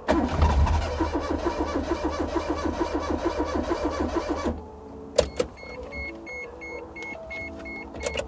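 Starter cranking the custom-swapped engine in a Daihatsu Mira, with a quick even beat from the compression strokes; the engine is trying to fire but does not catch. The cranking stops about halfway through, followed by a single click.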